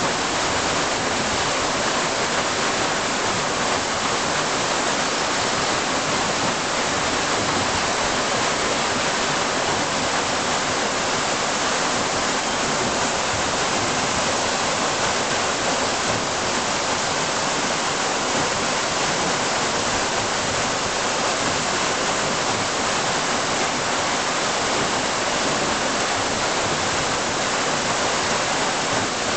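Water pouring and splashing from the buckets of a turning waterwheel with an iron rim and spokes and wooden buckets: a steady, even rush of falling water with no rhythm or knocks.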